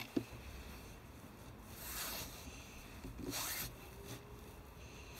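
Handling noise from the phone held against the rifle scope: two soft rubbing swishes, about two and three and a half seconds in, the second one rising.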